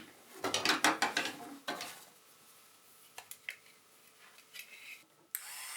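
Hard objects clattering and clinking as they are handled for about two seconds, then a few faint clicks. Near the end, a small handheld electric tool switches on suddenly and runs with a steady high whine.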